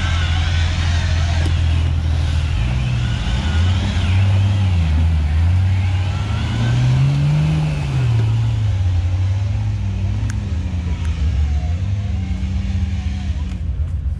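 Nissan GQ Patrol competition 4x4's engine revving hard under load as it climbs out of a muddy bog hole, the revs rising and falling again and again, then easing off near the end.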